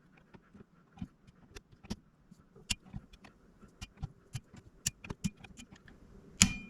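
Irregular sharp small clicks of an inch-pound torque driver ratcheting as the scope ring screws are tightened to torque, with one louder click near the end.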